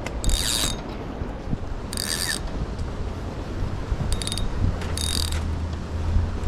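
Fishing reel ratcheting in about four short bursts while a spotted bay bass is hung up under a rock. A steady low rumble lies underneath.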